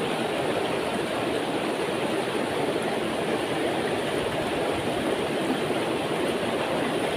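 Shallow, rocky river running high, its water rushing over stones in a steady, even rush.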